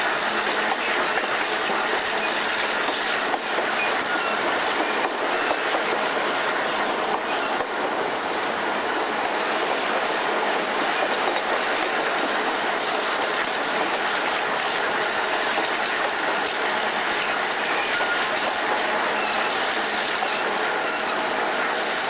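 Moving train heard from on board beside the diesel locomotive: a steady noise of wheels running on the rails with a clickety-clack of rail joints and faint wheel squeal now and then.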